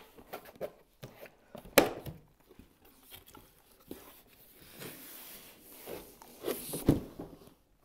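Cardboard product box being opened by hand: the lid is slid and lifted, with a stretch of cardboard scraping and rubbing in the middle and sharp knocks about two seconds in and near the end.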